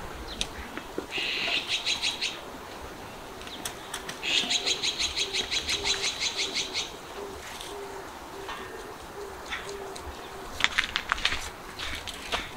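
Birds calling: two runs of rapid, evenly repeated high chirps, the longer one in the middle, over a faint low repeated note. A quick cluster of sharp clicks comes near the end.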